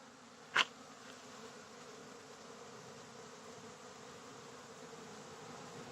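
Honeybees humming steadily around busy hives during a strong nectar flow, with many foragers flying in. A single sharp click about half a second in.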